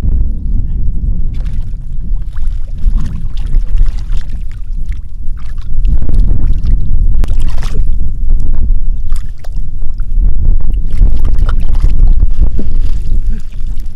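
Splashing and sloshing of shallow muddy water as hands grope through it, under a heavy, steady low rumble of wind buffeting the microphone.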